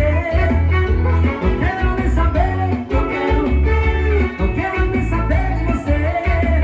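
Live band music: a guitar carries the melody over a heavy, pulsing bass beat.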